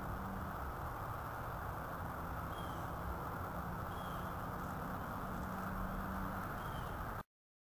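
Steady outdoor background noise with a bird giving short high chirps four times, about a second and a half apart; the sound cuts off suddenly near the end.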